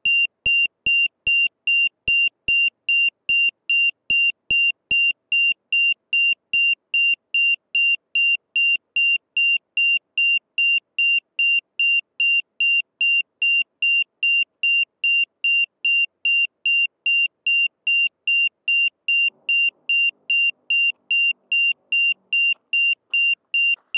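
FPV quadcopter's buzzer beeping on and off at about two high beeps a second, with the motors stopped, the pattern of a lost-model alarm.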